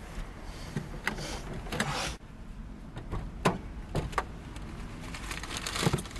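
Scattered knocks and clicks from a car door and someone reaching in at it, heard from inside the car over a low steady rumble, with a short hissing stretch that cuts off suddenly about two seconds in.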